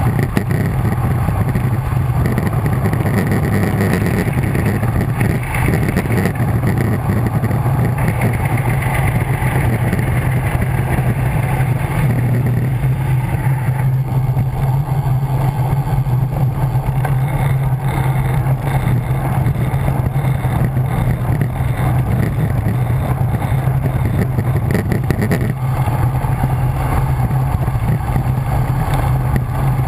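Wind rushing over a bike-mounted camera's microphone during a fast road descent: a steady, loud rumble that shifts in tone around the middle and again near the end.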